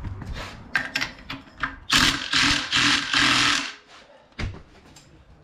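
Impact wrench hammering the retaining bolt of a mini bike's torque converter driver tight, in about four short rattling bursts two seconds in, after a few clicks as the socket goes onto the bolt.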